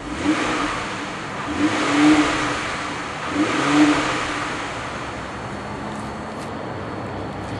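Ford Flex's 3.5-liter V6 engine revved three times in short blips, each rising and falling back, then settling to a steady idle.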